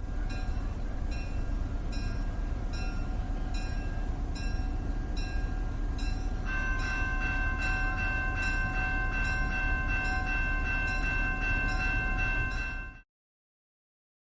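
Steam train running with a steady low rumble and a short high tone repeating about every 0.7 s. About halfway through, a steady whistle chord sounds and holds for about six seconds, then everything cuts off suddenly a second before the end.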